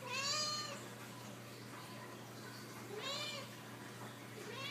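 Domestic cat meowing three times: a call at the start, another about three seconds in and a third near the end, each rising then falling in pitch. The owners take the meowing as the cat being upset.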